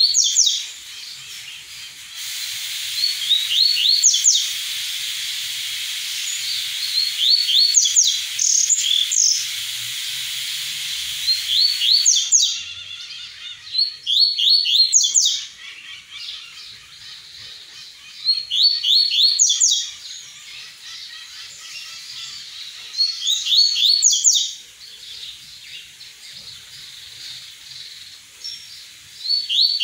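A caged double-collared seedeater (coleiro) singing its tui-tui song: short phrases of quick, high, downslurred notes, repeated every few seconds.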